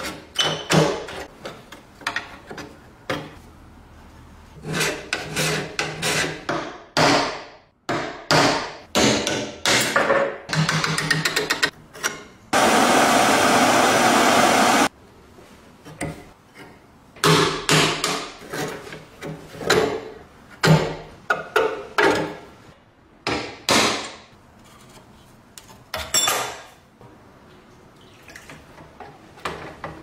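Irregular hammer knocks and taps, in clusters with short pauses, as an old door lock is worked on. Near the middle, a steady rushing noise runs for about two and a half seconds and then cuts off suddenly.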